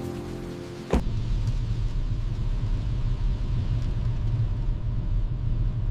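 Soft music ends sharply about a second in, giving way to the steady low rumble of a car driving.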